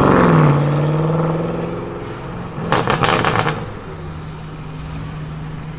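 BMW 8 Series coupe engine falling off a rev and settling into a steady drone as the car pulls away. A short burst of crackles comes about three seconds in.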